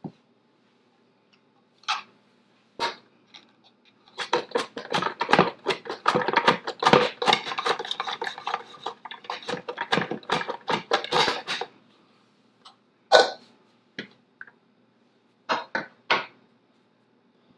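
Raw potatoes being sliced on a plastic mandoline slicer over a glass bowl: a run of rapid slicing strokes for about eight seconds, starting about four seconds in. A few separate plastic knocks and clacks come before and after it.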